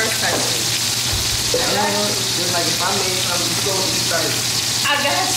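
Food sizzling in a frying pan on a gas stove: a steady hiss that runs throughout, with short bursts of voices over it.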